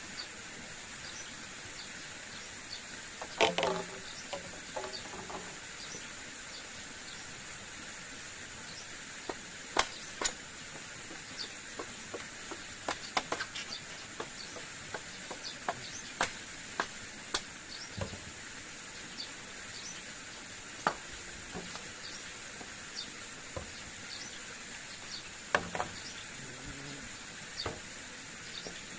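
Forest ambience: a constant high insect drone over a steady background hiss, with scattered sharp clicks and knocks every second or so, the loudest about 3 seconds in and again near the end.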